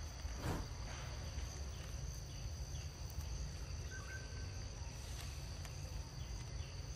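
Insects droning steadily at a high pitch over a low rumble, with a short rustle or tap about half a second in and a few faint chirps.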